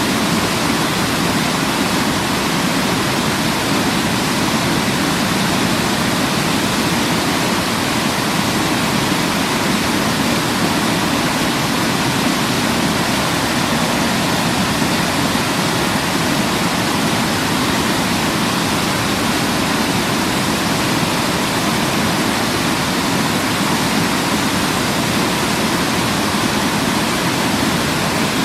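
Waterfall: water pouring and splashing in a steady, unbroken rush, fullest in its low, deep part.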